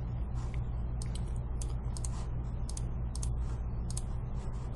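Irregular clicking of a computer keyboard and mouse, roughly two or three clicks a second, over a low steady hum.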